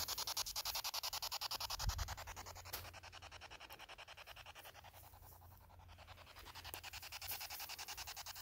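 Steady static hiss chopped into rapid, even pulses about ten times a second, the sound of a radio-sweep spirit box scanning through stations, over a low hum. The hiss thins out briefly about five seconds in.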